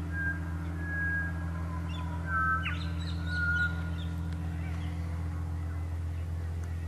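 Birds calling with short, clear whistled notes in the first four seconds, including a quick upward-swooping call about two and a half seconds in, over a steady low motor hum.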